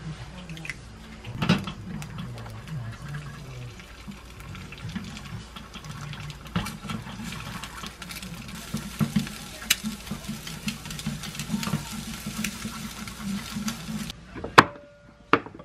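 An egg frying in a small oiled pan on a gas stove while wooden chopsticks beat and scramble it: a steady sizzle with many small taps and scrapes against the pan. Near the end the sizzle cuts off and two sharp knocks follow.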